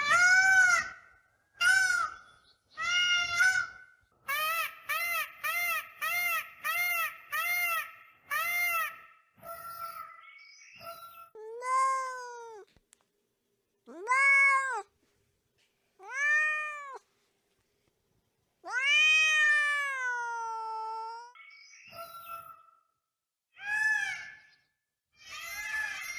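Domestic cat meowing repeatedly: a quick, even run of about seven short mews, then several longer drawn-out meows, the longest falling in pitch at its end.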